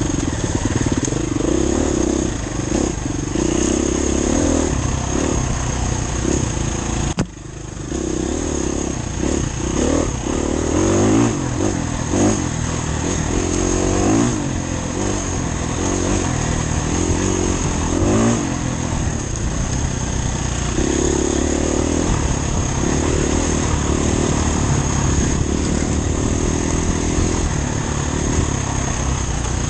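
Off-road dirt bike engine running hard, its revs rising and falling again and again as it is ridden. There is a brief sudden drop in the sound about seven seconds in.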